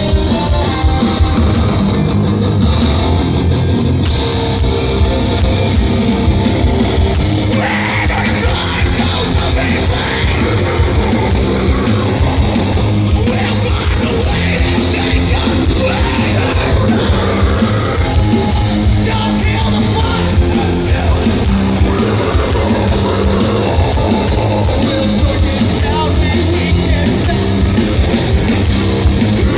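Live metalcore band playing loud, with distorted electric guitars, bass and fast drums, and a vocalist singing and screaming.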